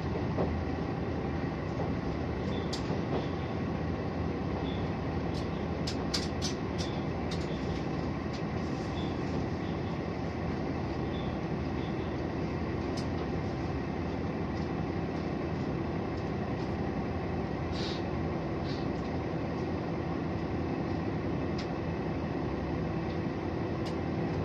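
Inside a HOT7000-series diesel express railcar under way: steady running noise of the engine and wheels on the rails, with scattered light clicks, clustered about six seconds in.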